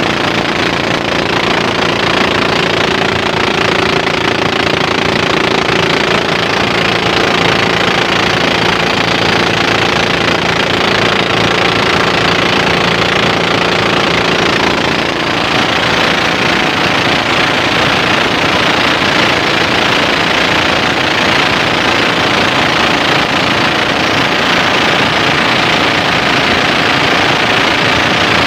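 Small boat's engine running steadily at cruising speed, with water rushing along the hull; the sound dips briefly about halfway through.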